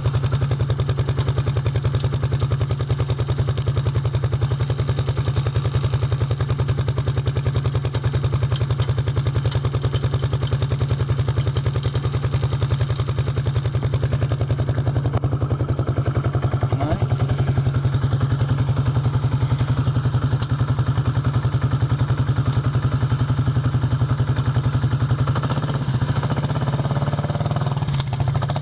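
2001 Bombardier ATV's Rotax 650 engine running steadily, holding an even speed with no revving.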